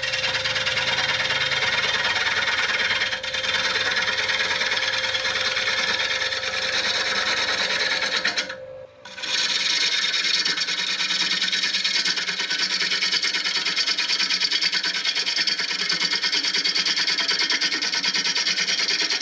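Bowl gouge cutting into a wood bowl blank spinning on a lathe: a continuous loud scraping, rasping noise over a steady hum. A little under halfway through it drops out for about half a second, then carries on.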